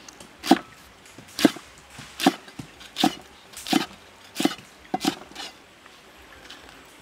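Heavy cleaver chopping lemongrass stalks on a thick round wooden log chopping block: about seven sharp chops at a steady pace, a little under a second apart, stopping about five seconds in.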